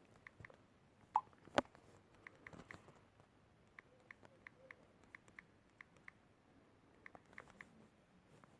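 Faint, irregular small clicks and taps, with two louder knocks about a second and a half in.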